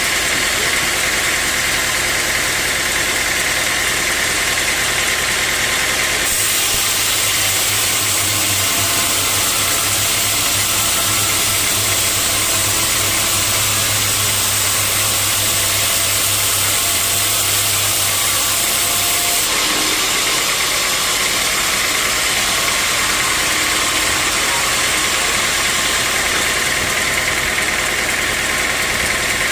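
Sawmill machinery running steadily with a constant mechanical drone. From about six seconds in to near twenty seconds the sound turns harsher and hissier over a stronger low hum, then settles back.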